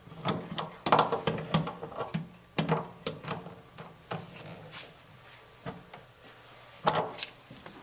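Irregular clicks and knocks of a wrench and faucet parts being handled while the faucet's retaining nut is tightened down over the cartridge, thicker in the first few seconds and again near the end.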